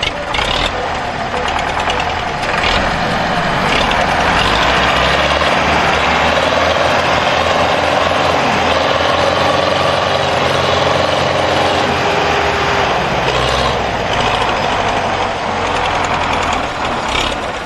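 Massey Ferguson 385 and Belarus 510 tractors' diesel engines running hard under load in a tug-of-war pull: a steady low engine drone under a loud, broad roar that builds after about two seconds and eases near the end.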